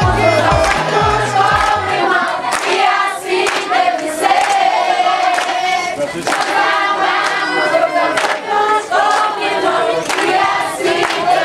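A group of women and children singing together in unison, with hand claps.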